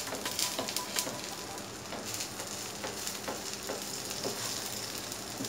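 Oil sizzling steadily around a wheat flour vegetable dosa frying in a non-stick pan, with several short scrapes of a wooden spatula as its edges are lifted from the pan.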